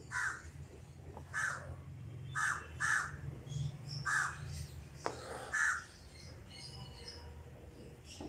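A bird calling nearby with short, repeated calls, about six in all, each a second or so apart, over a steady low hum.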